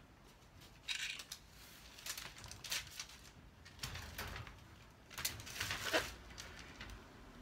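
Small metallic clinks and rattles from handling wire lattice panels and hand tools, in a few short separate clatters, the longest and loudest about five to six seconds in.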